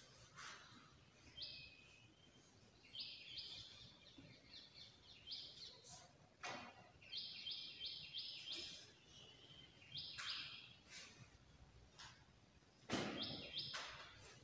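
A bird chirping: short high chirps, some single and some in quick runs of four or five. A few faint clicks come between them, and a louder thump sounds about a second before the end.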